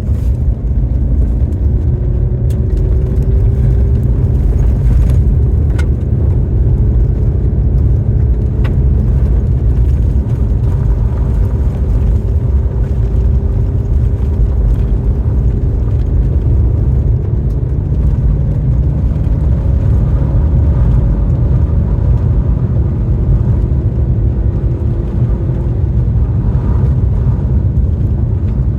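Car driving at a steady pace: a constant low rumble of road and engine noise with a faint engine hum that drifts slowly in pitch, and a few faint clicks.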